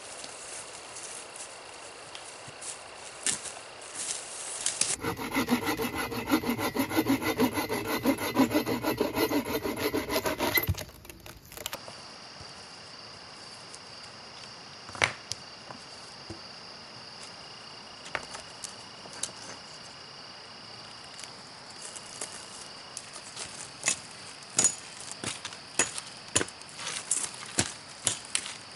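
A hand saw cutting through a log with fast, even strokes for about six seconds, starting about five seconds in. Before and after it is a steady high background hum of insects, with scattered sharp knocks on wood that come closer together near the end.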